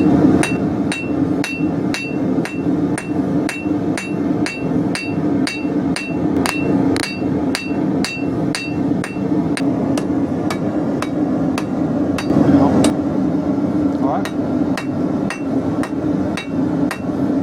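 Blacksmith's hammer striking hot steel bar on an anvil in a steady rhythm of about two blows a second, drawing out the bar. The anvil rings after each blow for the first half, then the blows turn duller. A steady low hum runs underneath.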